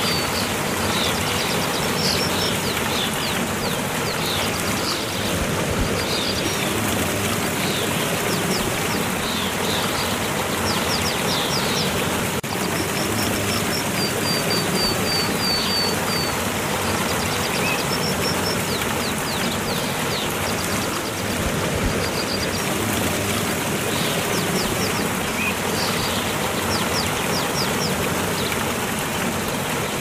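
A steady hiss of running water with small birds calling over it: quick high chirps and short trills of rapid notes, repeated throughout.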